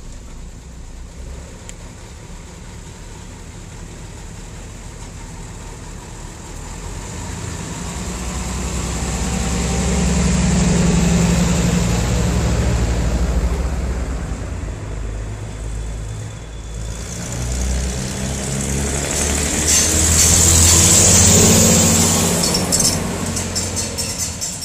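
Uerdingen railbus's underfloor diesel engines running as it pulls away and passes close by, building to a peak about halfway through. After a sudden break, it passes again with loud wheel and rail hiss over the engine, peaking near the end and then fading.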